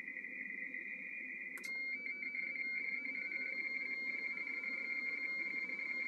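RTTY radioteletype tones from a Yaesu transceiver's speaker on the 17 m band. First comes a received two-tone data warble with static. About one and a half seconds in, a click marks the rig switching to transmit, and a cleaner, steadier RTTY tone follows as it sends its own reply.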